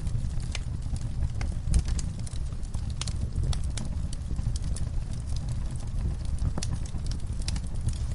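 Fire in a fireplace crackling: irregular sharp pops and snaps over a steady low rumble.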